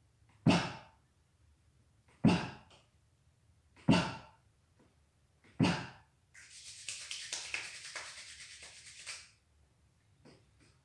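Four short, sharp breaths out, a Ba Duan Jin qigong exercise breath, one about every 1.7 seconds, each with a low thud and dying away quickly. They are followed by about three seconds of steady rustling rub.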